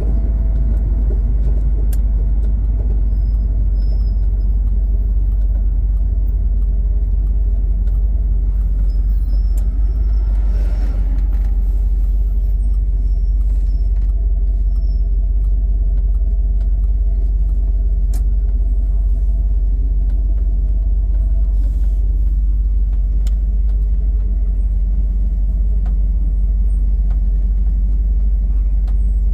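Steady low rumble of a 1971 Dodge Challenger convertible on the move, road and engine noise heard from inside the car.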